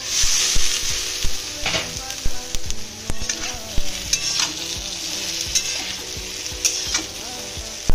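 Boiled potato pieces and coarsely ground spices frying and sizzling in a kadhai. The sizzle is loudest just as the glass lid comes off. A metal spatula scrapes and knocks against the pan as it stirs.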